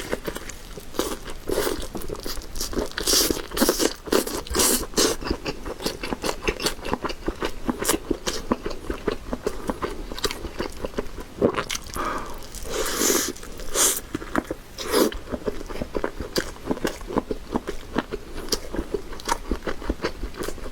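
Close-miked biting and chewing of a chunky grilled pure-meat sausage, a steady run of quick, irregular mouth clicks with louder bursts when fresh bites are taken.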